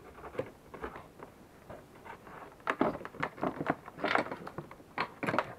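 Hands handling a removed ATV ignition coil and its wiring against the plastic bodywork: a run of irregular clicks, taps and rustles, busier and louder in the second half.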